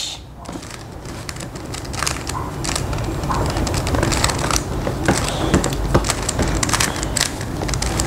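A magnetic Rubik's cube being turned quickly by hand: a rapid, irregular run of plastic clicks and clacks, busier after about two seconds, picked up close by a clip-on microphone over a low rumble of handling.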